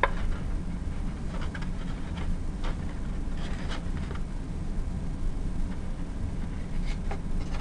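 Steady low background hum with a few faint, light taps and rustles of paper pieces being handled and pressed together.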